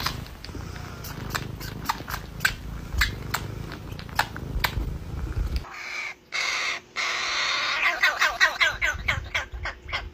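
Fledgling crow calling harshly to be fed, its begging calls coming in a fast run near the end. Before it, about the first half holds a low rumble with evenly spaced clicks.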